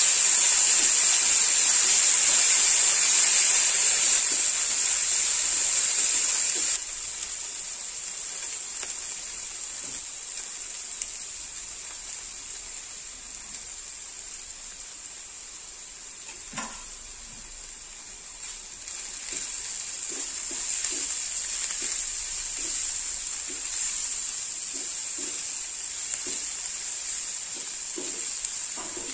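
Food frying in hot oil, with a steady sizzle. It is louder for the first seven seconds, then drops suddenly to a quieter sizzle. From about twenty seconds in, light utensil taps join it.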